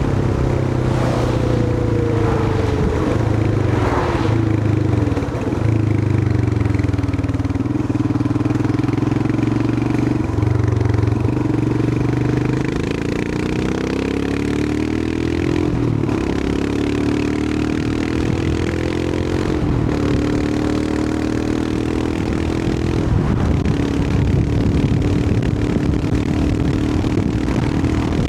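Royal Enfield Himalayan 411's air-cooled 411 cc single-cylinder engine running as the motorcycle rides along. Its pitch falls over the first few seconds, holds steady, then climbs again around the middle with the engine speed, over a steady rush of road and wind.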